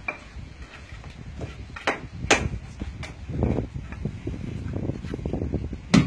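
Stone masonry work: a few sharp clinks of a mason's trowel or stone knocking on stone while stones are set in mortar, then a stretch of scraping and crunching of loose stone rubble, ending in one loud knock.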